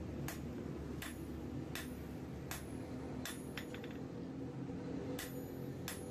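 Hand hammer striking a steel file on an anvil, each blow a sharp ringing clang: about eight blows, roughly one every three-quarters of a second, with a few quick light taps around the middle. A steady low hum runs underneath.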